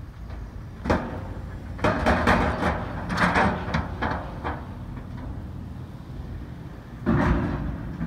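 Case backhoe loader running with a steady low rumble, broken by loud metal clanks and bangs from its snow pusher box and loader arms as it is worked: one about a second in, a cluster over the next few seconds, and another near the end.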